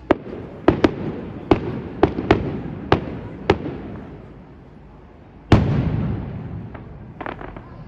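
Fireworks display: a run of sharp bangs from bursting shells, about eight in the first three and a half seconds. Then one louder boom a little past the middle that rumbles away, and a quick flurry of smaller crackles near the end.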